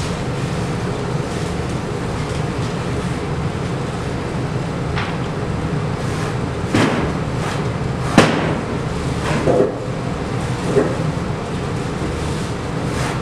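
Steady low room hum with a handful of sharp knocks and taps, the loudest about eight seconds in.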